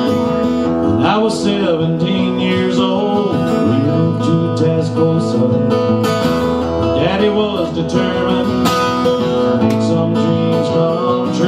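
Instrumental passage of a country-flavoured song: strummed acoustic guitar with a melodic lead line gliding over it, between sung verses.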